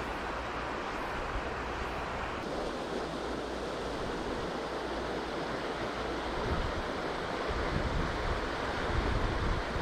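Steady rush of a clear river's flowing water. From about two-thirds of the way in, gusts of wind buffet the microphone.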